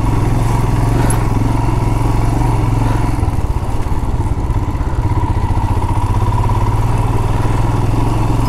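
Royal Enfield Himalayan's single-cylinder engine running steadily under way, heard from the rider's position, with road and wind noise mixed in.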